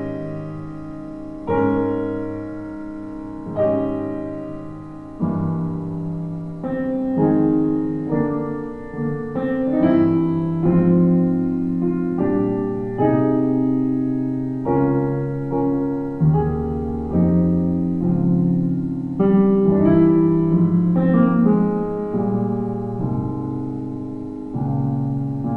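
Background solo piano music: slow chords struck about every two seconds, then a busier line of notes, each note ringing and fading.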